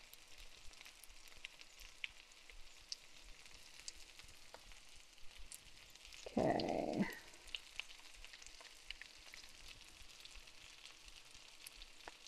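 Cauliflower steaks frying in butter on an electric griddle, a faint steady sizzle with scattered crackles. About halfway through comes a brief louder, lower sound lasting under a second.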